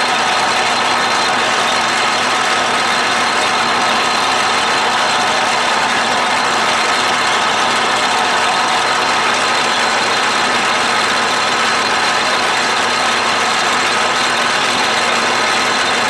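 Atlas Craftsman 12-inch lathe running with a form gear cutter on its spindle milling a tooth into a gear blank: a loud, steady machining noise with faint steady whining tones.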